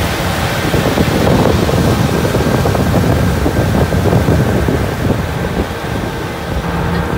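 Single-cylinder diesel engine of a Kubota two-wheel tractor running steadily, with wind buffeting the microphone.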